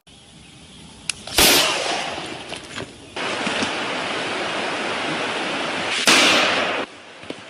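Two loud gunshots on an outdoor range, about five seconds apart, each ringing out and dying away over about a second, with steady wind-like hiss on the microphone between them and a sharp click just before the first.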